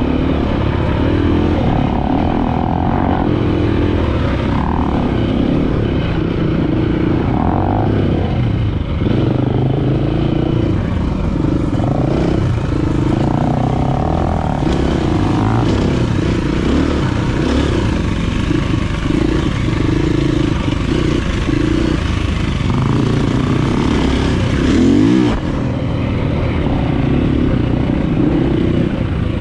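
Dirt bike engine running at trail speed, heard from on the bike, its revs rising and falling with the throttle. Near the end there is a short rev, then the throttle closes.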